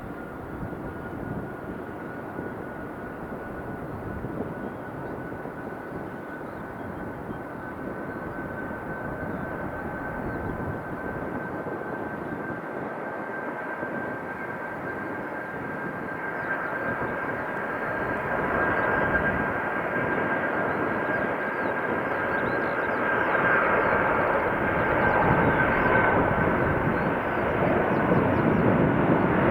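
Airbus A330-300's Rolls-Royce Trent 700 turbofans at takeoff power: a steady fan whine over a broad jet rumble, growing steadily louder as the airliner comes closer.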